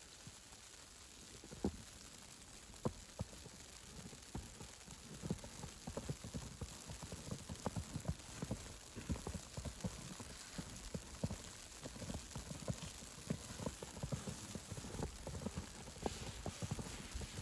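Footsteps crunching on snow, a quick uneven run of soft impacts that starts sparse and grows busier after a few seconds, over a faint steady hiss.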